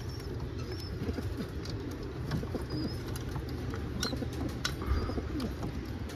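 Domestic pigeons cooing steadily, with a few short high chirps and a couple of sharp clicks over the top.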